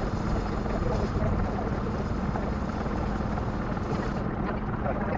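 A sailboat's inboard engine running steadily under way, a constant hum with a low rumble.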